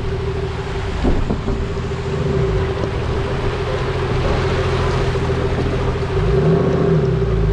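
A 4WD vehicle's engine running as it wades through a rocky river, with rushing, splashing water around it. There is a thump about a second in, and the revs briefly rise and fall near the end.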